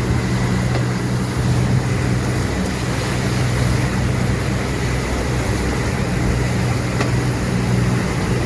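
Yamaha four-stroke outboard motor running steadily with the boat underway at speed, a constant low engine hum under a loud rush of wind and water from the wake.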